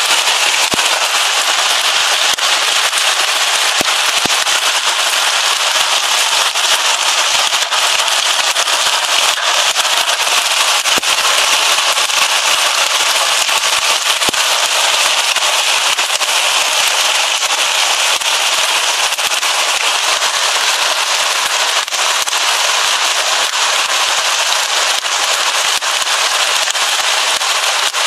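Heavy hail pelting down with rain: a loud, steady, dense clatter of countless small hailstone impacts over a hiss, with no let-up.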